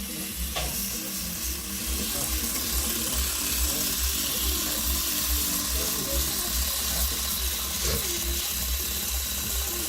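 A steady hiss over a low, uneven rumble, with faint voices in the background.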